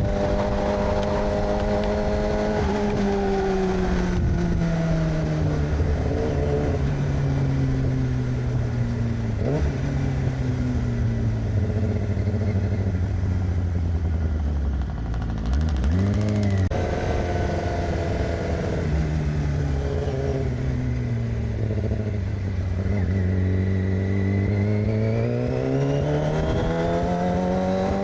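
A 2006 Yamaha R6's inline-four engine with an aftermarket AR exhaust, heard with wind rush while riding. The engine pitch sinks slowly as the bike slows on a closed throttle. There is a brief rev a little past the middle, then the engine winds up steadily as it accelerates near the end.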